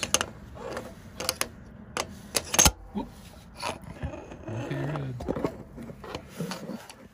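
Scattered metallic clicks and knocks as a steel bar and tools are handled against the pistons and crankcase of a Continental IO-470 engine, with one sharp knock about two and a half seconds in.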